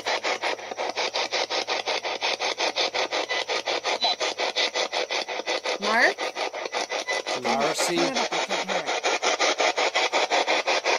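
Spirit box, a handheld radio rapidly sweeping through stations, putting out choppy static in quick, even bursts about nine times a second. A brief snatch of a radio voice breaks through about seven to eight seconds in, which the investigators caption as a possible spirit saying "Mark" or "Marcy".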